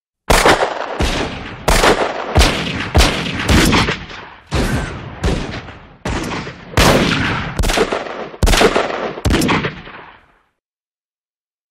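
Western-style revolver and rifle gunshots: about a dozen single shots at uneven intervals, each followed by an echoing tail, ending about ten seconds in.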